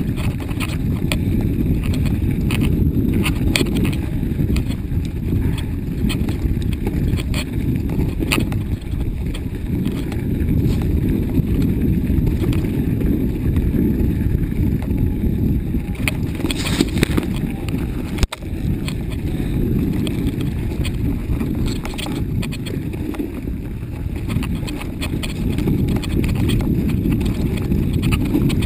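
Mountain bike ridden over a bumpy snow-covered trail: a steady low rumble of rolling and wind buffeting on the microphone, with frequent knocks and rattles from the bike jolting over bumps.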